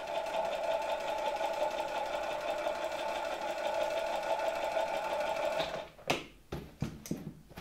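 The KASB-70/30 electric motor of a 1964 Gamma II vacuum cleaner running slowly with a steady whine, fed from a rectifier (battery charger) as a first test after rewiring. The whine stops about six seconds in, followed by a few clicks.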